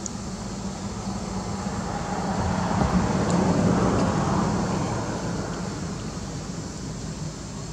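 A vehicle passing by unseen: a steady engine-and-road noise that grows louder to a peak a few seconds in, then fades away.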